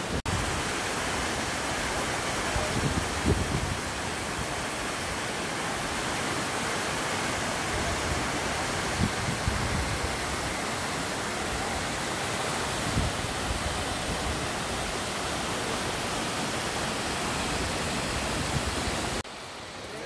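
Close-up roar of a tall waterfall crashing into its rocky pool: a steady, even rush of falling water. It drops to a much quieter hiss about a second before the end.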